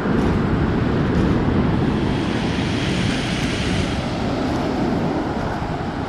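Rough Black Sea surf breaking and washing over a pebble beach, a steady rushing hiss with a heavy low rumble, with wind buffeting the microphone.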